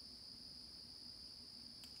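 Faint insect chorus in woodland: a steady, unbroken high-pitched trill with no gaps. A faint click near the end.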